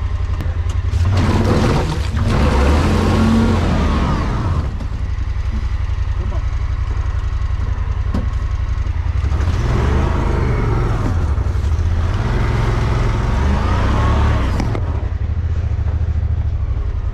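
Honda Pioneer 1000 side-by-side's engine running steadily as the machine is winched out of mud sideways and backwards. Two long stretches of whining, wavering pitch come in over it, a little after the start and again past the middle.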